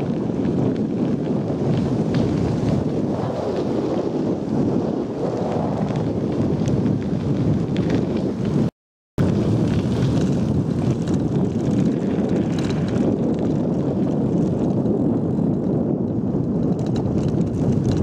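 Steady wind rumble on the microphone of a camera riding along on a bicycle, with tyre noise from the gravel path underneath. The sound cuts out for a moment about halfway through.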